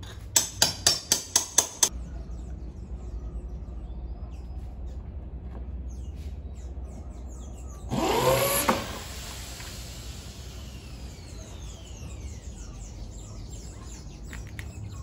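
A quick run of about seven sharp knocks in the first two seconds, as of hammer blows on the wall. About eight seconds in, a power tool's motor whirs up quickly in pitch and stops after under a second, over a steady low hum.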